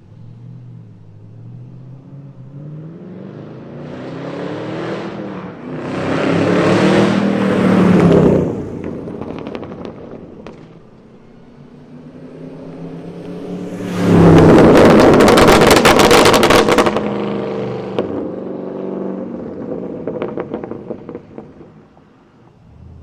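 2022 Camaro ZL1's supercharged 6.2-litre V8 through an H-pipe cat-back exhaust, revved hard twice. The first climbs in pitch over the first eight seconds; the second, loudest, comes about fourteen seconds in. Each is followed by crackling pops as the throttle closes.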